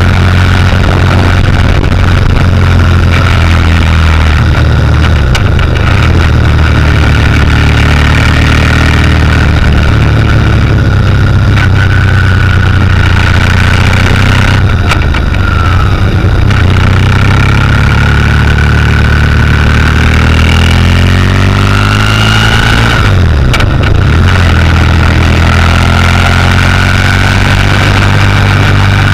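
Motorcycle engine running steadily under way, heard loud and close from a camera mounted on the bike, with a rushing noise over it. The engine note dips and climbs again about 23 seconds in.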